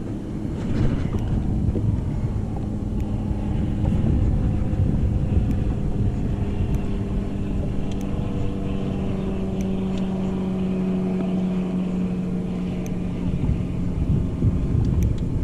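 Engine running steadily: a low drone with a held hum that sinks slowly in pitch and fades out near the end, typical of a boat's engine on the water.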